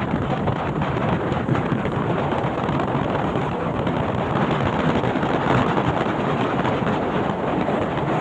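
Steady rush of wind buffeting the microphone.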